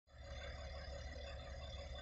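Steady diesel engine drone with a low rumble from heavy earthmoving machinery: a Cat 336 hydraulic excavator working beside an articulated dump truck.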